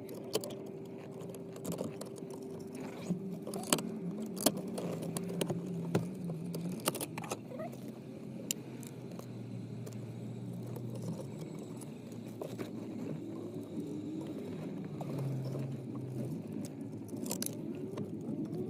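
Scattered clicks, taps and light rattles of hands working a wire and plastic dashboard trim under a car's steering column, over a faint steady hum that has a thin tone in it for the first six seconds or so.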